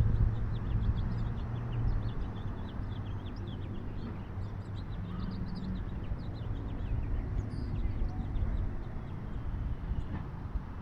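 Many small birds chirping with short, high notes throughout, over a steady low rumble.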